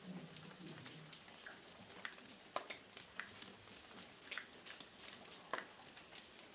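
Light rain falling, with water dripping from a roof edge in irregular sharp drops, two louder drips about two and a half and five and a half seconds in.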